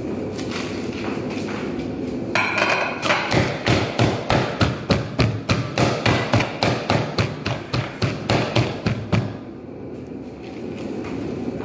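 Hands slapping the bottom of an upturned aluminium cooking pot, a quick even run of thumps, about three a second, for some seven seconds. This is the tapping that loosens a chicken maqluba from the pot before it is lifted off.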